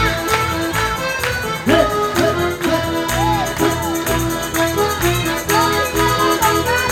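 Lively folk dance tune played live by a small band: accordion carrying the melody over bass notes and a steady percussion beat.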